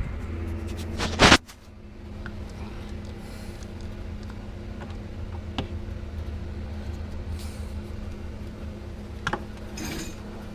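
Steady low hum with a faint hiss from the CB radio test setup, broken by a loud clunk about a second in and a few light clicks later, as of switches or parts being handled.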